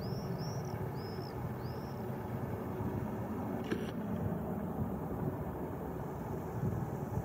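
Distant Boeing 737-800 jet airliner on final approach, its CFM56 turbofans a steady low rumble. A bird chirps several times in the first couple of seconds.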